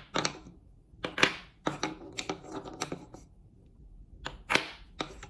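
Wooden balls clacking against a wooden spoon, a wooden bowl and wooden cups as they are scooped up and dropped in. A quick run of sharp clicks and knocks comes about a second in, then a few single knocks near the end.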